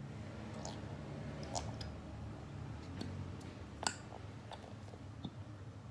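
Plastic squeeze bottle of white glue being squeezed out into a glass bowl: scattered soft clicks and squishes, with one sharper click a little before four seconds in.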